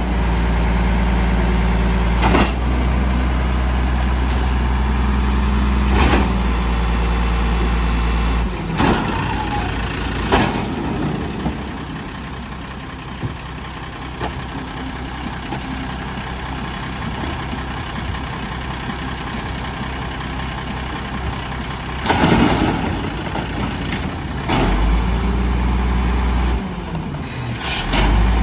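Diesel engine of a 1996 Volvo WX garbage truck idling while the Amrep manual side-loader hydraulics work. Its heavier, louder drone drops away about eight seconds in and comes back near the end. Scattered clunks and bangs come from cardboard and bins being handled at the hopper.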